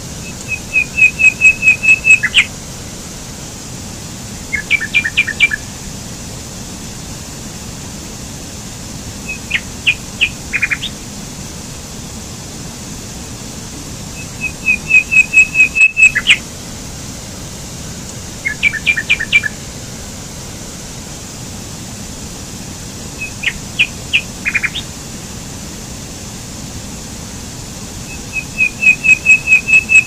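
Small woodland stream rushing steadily over rocks, with a songbird singing loud phrases over it: a quick run of identical high notes, then short groups of chirps. The same set of bird phrases comes round again about every fourteen seconds.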